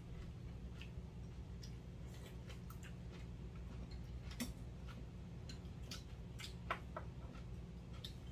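Utensils clicking and scraping against bowls and dishes during a meal, scattered sharp ticks at irregular moments, with soft chewing, over a steady low hum.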